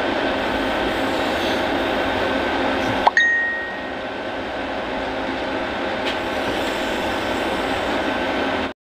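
Steady mechanical hum of a refrigerator compressor running during a repair test. About three seconds in there is a single sharp metallic clink that rings briefly. The sound stops abruptly near the end.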